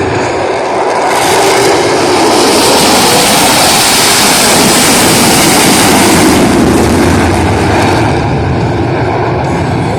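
Four Blue Angels F/A-18 Super Hornets in Diamond formation making a low pass, the thunder of their eight jet engines swelling about a second in, loudest through the middle and dying away near the end.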